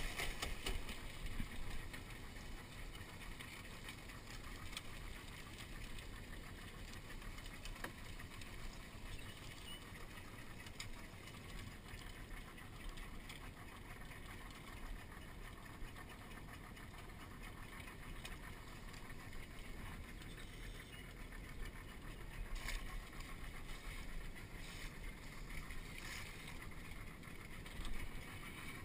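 Steady, muffled low rumble of the skiff's idling outboard motor, with a few sharp knocks near the end as crawfish traps are handled against the boat's side.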